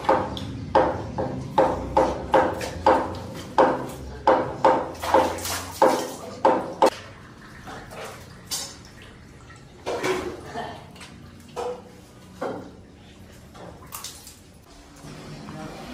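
Wet, rhythmic slapping from working the hide off a hanging sheep carcass, about two and a half strokes a second, stopping about seven seconds in. After that, a few scattered wet knocks and clinks as the carcass is gutted over a metal bucket.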